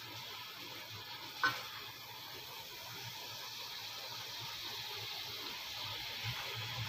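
Milkfish steaks cooking in a pan of reducing sauce: a steady, low sizzle. One brief clink about one and a half seconds in.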